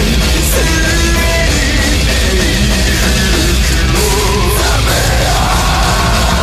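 Japanese visual kei gothic metal song: a dense, loud band mix of distorted guitars and drums, with a shouted or sung vocal line wavering over it.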